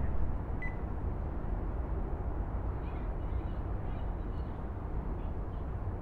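Steady outdoor background noise, mostly a low rumble, with one short high chirp about half a second in and a few faint high chirps later.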